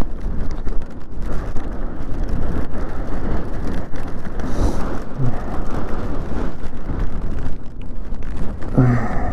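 Steady wind rush on the microphone and wet-road noise while riding a Daymak Pithog Max electric dirt bike in the rain. There is a brief vocal sound near the end.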